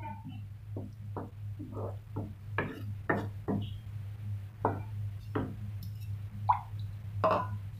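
Wooden spatula stirring thick spinach paste in a non-stick kadai, its strokes scraping and tapping against the pan at about two a second, over a steady low hum.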